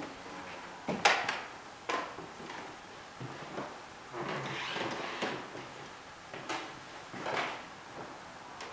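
A man snoring in his sleep: a series of short, raspy snorts at uneven intervals, the sharpest about a second in, with one longer rasping breath around the middle.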